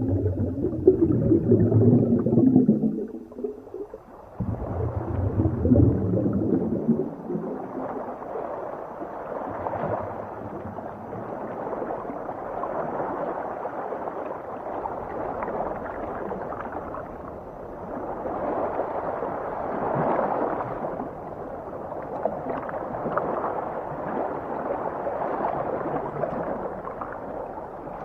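Underwater water noise: loud, low churning for the first several seconds, then a steadier wash that slowly swells and eases.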